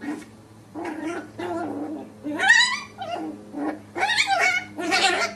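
Puppies growling and yipping as they play-fight: a string of short, high-pitched growls, with a rising squeal about two and a half seconds in.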